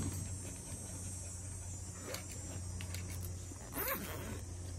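A dog gives a short whimper near the end, over a steady low hum, with a few faint clicks.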